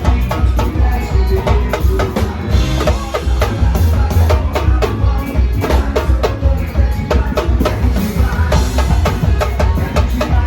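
Loud live band music with heavy drums and percussion over a deep, pounding bass beat.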